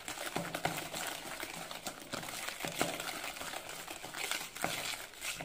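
Wire whisk beating creamed butter and powdered sugar in a plastic bowl: a quick, irregular run of scraping and clicking as the wires strike and drag against the bowl.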